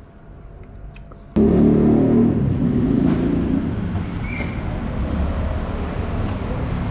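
Faint chewing clicks, then about a second and a half in a loud motor vehicle engine running close by. It is loudest at first and eases off after a couple of seconds.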